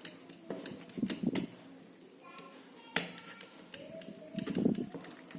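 Small clicks and taps of robot car chassis parts and screws being handled and fitted together by hand, with a sharper click about three seconds in.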